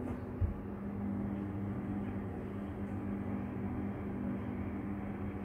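Steady low mechanical hum with a faint steady tone in it, and one soft low thump about half a second in.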